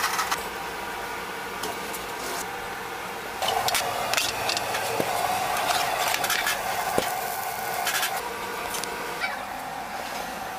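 Commercial kitchen noise: a steady machine hum, with a busier stretch of clinks and clatter from metal pans and utensils in the middle.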